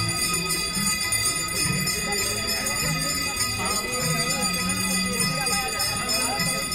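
Temple bells ringing continuously for the Ganga aarti, over devotional music with a sung melody.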